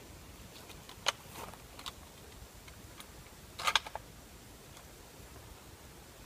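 A few short sharp clicks from a hunting rifle being handled: a single click about a second in, lighter ones soon after, and the loudest quick cluster of clacks a little past the middle.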